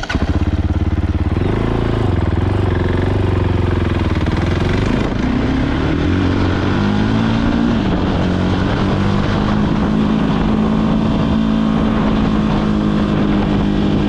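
Fantic Caballero 500 scrambler's single-cylinder four-stroke engine running on the move. It rises in pitch under throttle, drops about eight seconds in, then holds a steady note.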